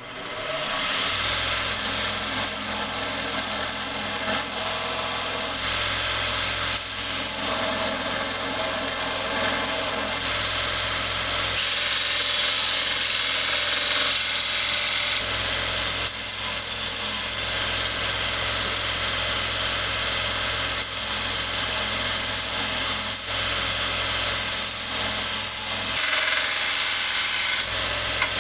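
Craftsman 2x42 belt grinder starting up, reaching full speed within about a second, then running steadily with a low motor hum while a knife blade blank is ground on the belt. The high grinding hiss grows and eases several times as the blank is pressed on and lifted.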